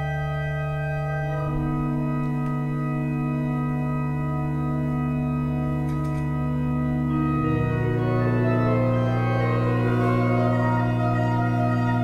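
Electronic organ holding long sustained chords: new notes enter about a second in, and a little past halfway the chord shifts, its bass stepping down and the upper notes growing busier.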